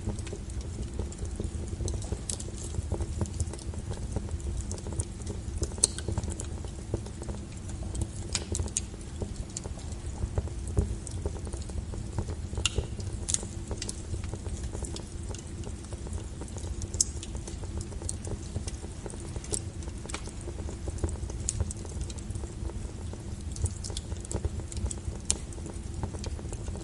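Wood fire crackling: a steady low rumble of burning with scattered sharp pops and snaps throughout.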